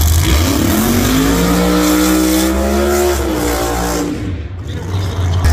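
V8 drag car doing a burnout: the engine revs up, rising in pitch and holding high for a second or so, then drops away about four seconds in.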